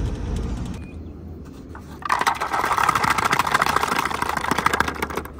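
Crinkling and crackling of snack packaging being handled and opened, starting about two seconds in and lasting about three seconds. In the first second, the low rumble of a moving car fades out.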